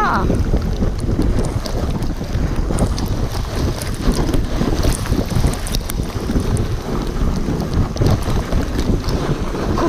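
Sled runners scraping and hissing over packed snow at speed, with heavy wind buffeting the microphone and scattered small knocks and clicks from bumps in the track.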